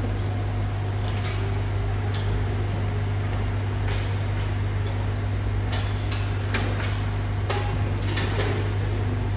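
A steady low machine hum with a string of sharp, irregular knocks and clanks over it.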